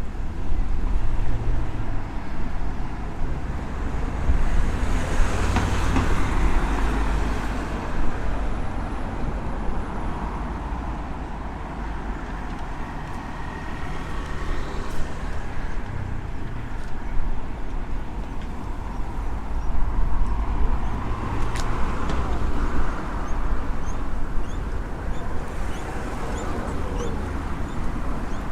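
Street traffic: cars and other vehicles driving past, a steady rumble that swells twice as vehicles go by.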